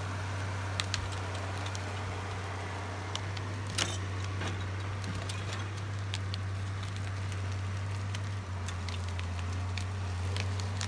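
Diesel engine of heavy logging machinery running at a steady low drone, with scattered sharp clicks and snaps over it.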